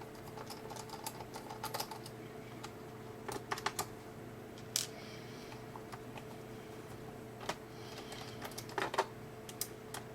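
A small screwdriver working the screws out of a laptop's plastic bottom panel: scattered, irregular light clicks and ticks, with a couple of brief scraping sounds, over a steady low hum.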